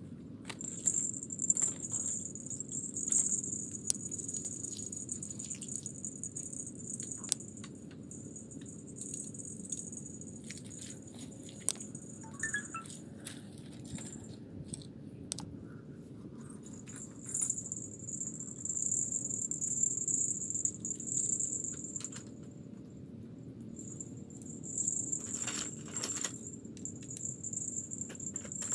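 Insects buzzing in a steady high-pitched drone that breaks off twice and starts again. Over it come light clicks and rattles of fishing rods being sorted and handled.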